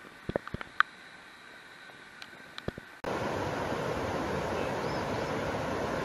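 Low background with a few sharp clicks and knocks. About halfway through it switches abruptly to the loud, steady rush of river rapids.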